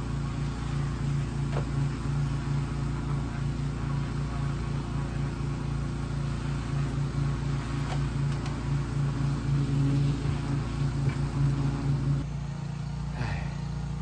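An engine running steadily with a low, pulsing hum; the sound shifts abruptly near the end.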